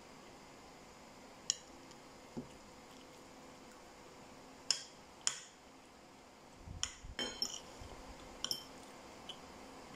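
Metal spoon and fork clinking against ceramic bowls while eating: a few separate clinks, then a quick cluster of them about seven seconds in.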